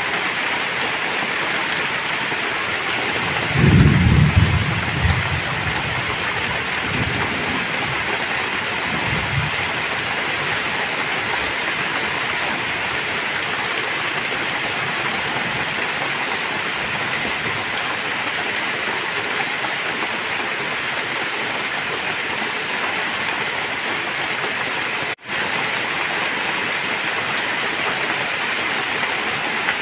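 Heavy rain falling steadily. A low rumble of thunder swells about three and a half seconds in and fades away in weaker rolls by about ten seconds. The sound briefly cuts out for a split second near the 25-second mark.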